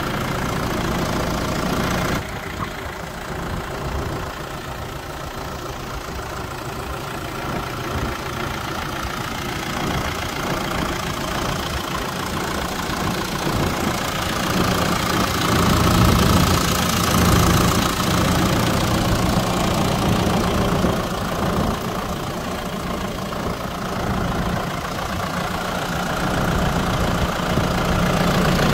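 Deutz Agrofarm 430 tractor's diesel engine idling steadily.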